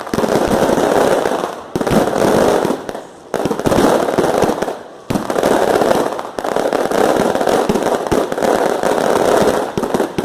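Fireworks display: rapid, continuous bangs and crackling from many shells going off together, with brief lulls about three and five seconds in.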